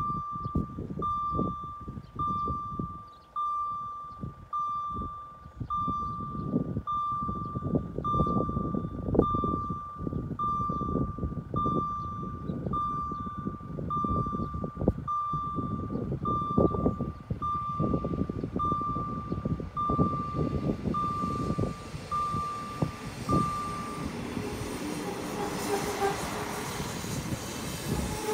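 GZT30 electronic acoustic signal of a railway level crossing beeping, one steady high tone about once a second, stopping about three-quarters of the way through. After the beeps stop, a passenger train can be heard approaching, its noise growing louder near the end.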